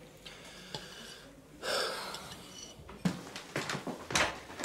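A breathy, hissing exhale, then three short sharp clicks or knocks.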